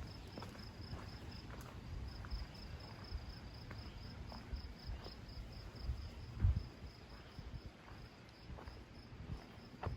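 A cricket chirping in an even, high-pitched pulse, about four chirps a second, over a low rumble on the microphone. A dull thump comes about six and a half seconds in.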